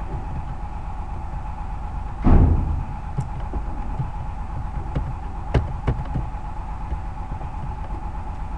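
Steady background hum with a constant high tone, broken by one loud low thump about two seconds in and then a few sharp computer mouse clicks around the middle.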